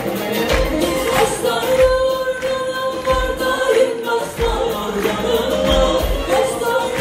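Live band and singer performing a song with a steady drum beat, heard from the audience seats of a concert hall.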